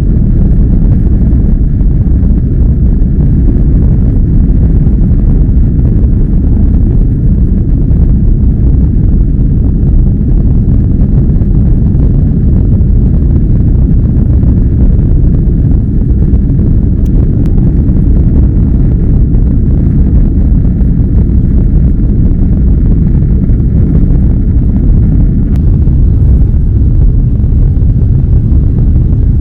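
Inside an Airbus A330-300 cabin during take-off and climb: the jet engines at take-off power and the rushing air make a loud, steady low rumble that does not let up.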